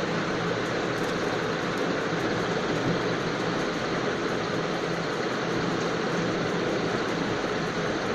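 Steady rushing background noise with a low hum, unchanging throughout.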